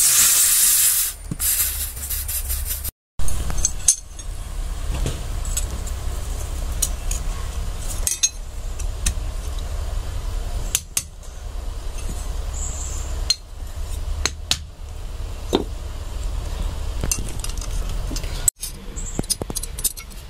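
Light metal clinks and scrapes scattered over a low steady hum, with a short loud hiss in the first second.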